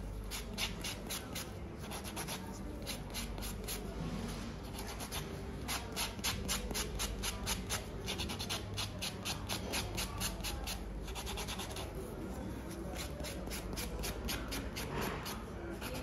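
A hand nail file rubbing across fingernails in quick, even back-and-forth strokes, in runs separated by short pauses.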